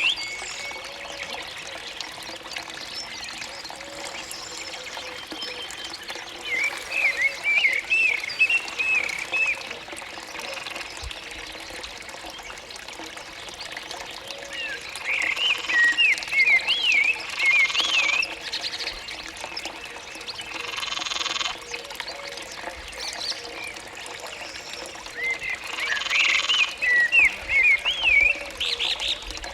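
Countryside soundscape: frogs calling steadily, with three bouts of quick, high rising-and-falling chirps and a few short rushes of hiss.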